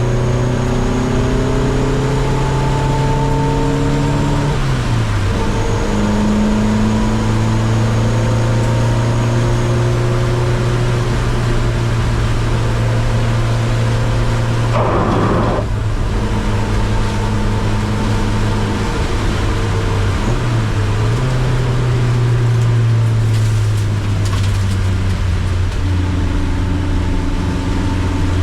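Car engine running on track at fairly steady revs, its note dropping and climbing back about five seconds in and again around twenty seconds, over a constant hiss of heavy rain and wet-road noise. A brief whooshing swell comes about halfway through.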